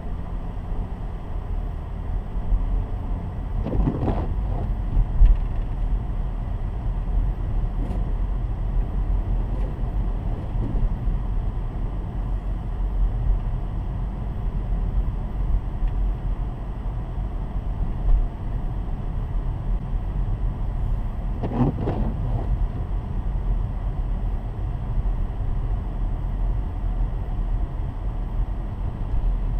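Steady low rumble of a car driving, engine and tyre noise on the road. Twice a brief louder swell rises and falls over it.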